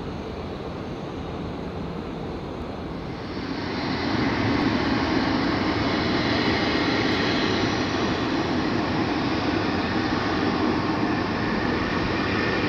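Jet engine noise from Swiss Airbus A340-300 airliners, four-engined with CFM56 turbofans. At first a quieter steady hum from an A340 taxiing. About three seconds in it turns to louder, steady engine noise with a faint whine, from an A340 on final approach with its landing gear down.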